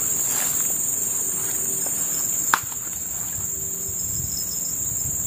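Steady high-pitched insect chorus, unbroken throughout, with a single sharp click about halfway through.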